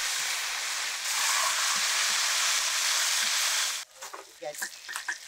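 Hot oil sizzling steadily around banana-leaf-wrapped fish parcels frying in a wok, growing louder about a second in. It cuts off suddenly near the end, giving way to scattered light knocks and rustles as the charred parcels are set into a bamboo basket with a metal spatula.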